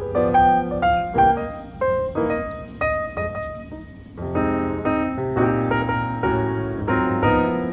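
Background music: a piano playing a flowing melody over low bass notes, thinning out briefly about halfway through.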